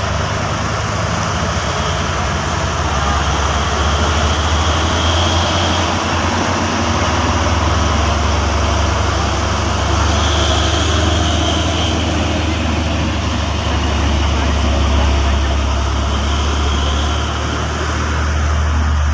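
Highway traffic: trucks and cars driving past close by, with diesel engines running and tyre noise over a steady low engine hum.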